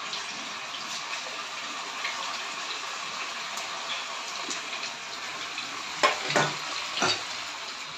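Rice manchurian balls deep-frying in hot oil in a karahi: a steady sizzling hiss, with two short, louder bursts about six and seven seconds in.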